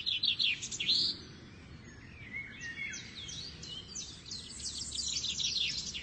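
Small birds chirping and twittering: many quick, high notes, busiest in the first second, a short lull, then a steady run of chirps over the last few seconds. A faint steady background hiss lies under them.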